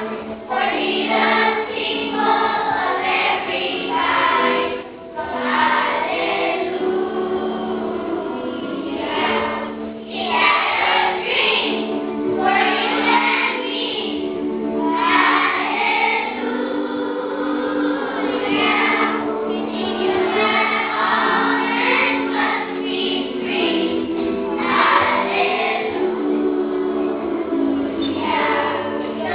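A choir singing with musical accompaniment: a group of voices over steady held chords.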